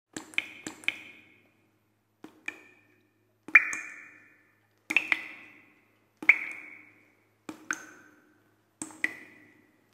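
Water drops dripping one after another, each landing as a sharp click with a short ringing ping that dies away. The drops come roughly every second and a half, often in quick pairs, and each ping is at a slightly different pitch.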